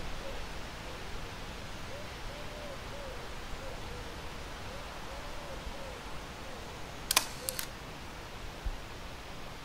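Leica M8.2 rangefinder's shutter firing about seven seconds in: one sharp click, then two quick clicks about half a second later. Under it, a bird gives soft, repeated low calls over a steady outdoor hiss.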